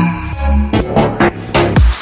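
Electronic music with a heavy bass. It is in a quieter break, where the steady beat thins to a few scattered drum hits.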